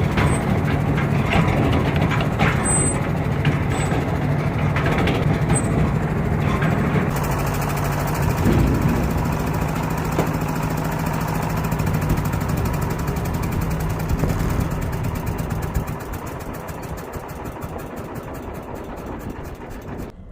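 Cargo boat's diesel engine running steadily underway with a low, even hum, growing quieter over the last few seconds.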